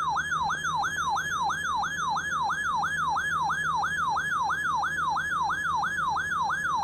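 Electronic emergency-alert siren tone sweeping quickly up and down in pitch, about three times a second and very regular. It is the attention signal that opens a broadcast severe thunderstorm watch alert.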